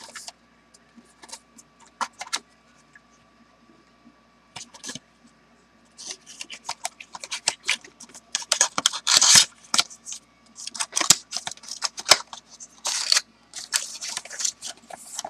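A cardboard fragrance box being handled and opened by hand, with the bottle drawn out of it. Scattered light clicks and taps come first, then from about six seconds in, bursts of crackly rustling and scraping of cardboard and wrapping.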